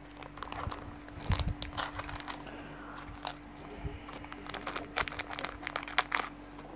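Thin clear plastic bag crinkling and rustling as it is handled, in irregular crackles, over a faint steady hum.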